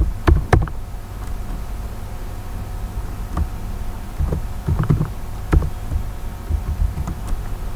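Slow, scattered keystrokes on a computer keyboard: dull clicks, single or in short runs, a second or more apart, over a steady background hum.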